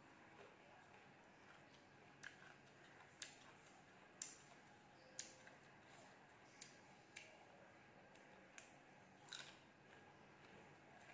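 Close-up mouth sounds of chewing crisp raw fruit: faint, sharp crunches, about eight of them, roughly one a second.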